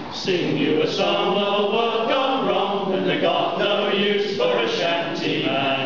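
A group of men singing a sea shanty together.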